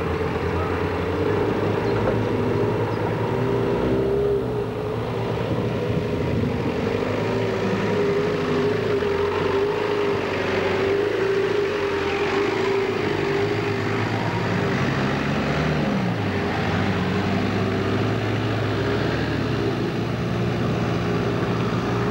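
Engines of off-road 4x4 vehicles running as they work over rough grassy slopes and dirt tracks: a steady drone whose pitch falls and climbs again about two-thirds of the way through.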